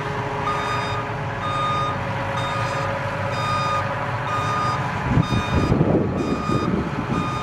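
New Holland CR combine harvester's reversing alarm beeping about once a second, each beep about half a second long, over the steady running of its engine. A rougher rumble swells briefly about five seconds in.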